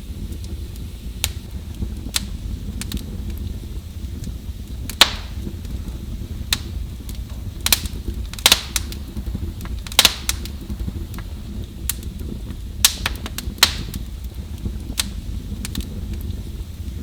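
Wood fire burning in a fireplace, crackling with irregular sharp pops over a steady low rumble of the flames; a handful of louder snaps stand out among the smaller crackles.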